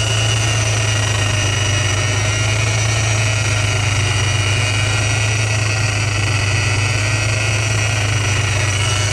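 Engine running steadily with a Vortech V3 Si centrifugal supercharger, whose bad bearing makes a steady noise of high-pitched tones over the engine's low hum.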